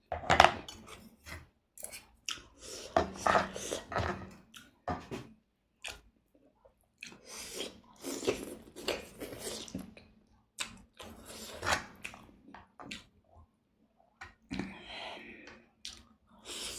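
A person chewing food close to the microphone, in irregular bursts of mouth sounds with short pauses.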